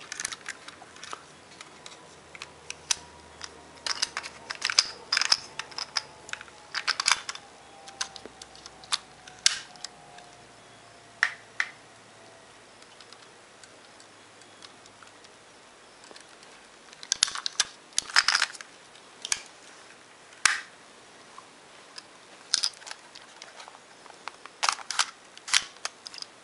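Sharp plastic clicks and clacks from a Kodak 110 pocket camera being handled, its flip-down film door worked, in two busy clusters with a quieter stretch midway.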